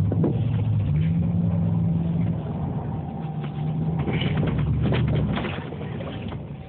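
Dodge Dakota pickup's engine running under throttle while doing donuts in snow; its pitch rises about a second in and falls back a little over a second later.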